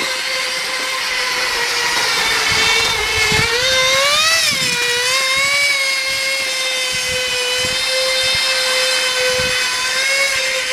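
Tiny 0.8 cc (0.049 cu in) NT18 two-stroke nitro model engine driving a kick scooter, running flat out with a high, steady whine near 30,000 rpm. Its pitch rises and falls about four seconds in, then holds steady.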